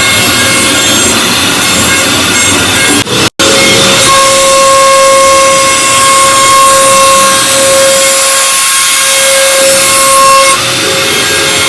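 CNC router spindle cutting an MDF sheet: loud, steady cutting noise. It cuts out for an instant just after three seconds, and a steady whine rides over it from about four seconds in until shortly before the end.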